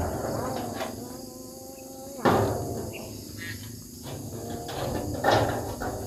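Two sharp hammer blows on corrugated zinc roofing sheet, about three seconds apart, each leaving a ringing metallic tone that dies away, over a steady high chirring of crickets.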